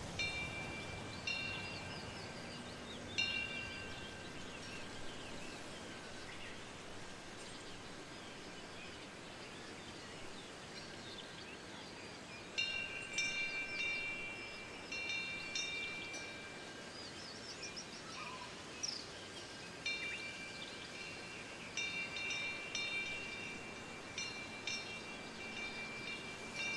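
Metal temple wind bell ringing in the wind: irregular strikes, a few alone in the first seconds, then quick clusters, each ringing on with a clear held tone. Beneath it a faint steady hiss of wind, and a few small bird chirps between the strikes.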